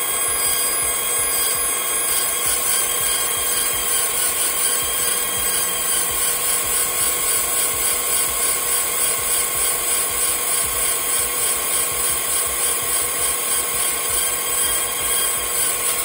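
G-WEIKE G2 Pro 30 W fiber laser marking a metal Raspberry Pi case: a steady, high buzzing whine made of several held tones, with a slight even pulsing.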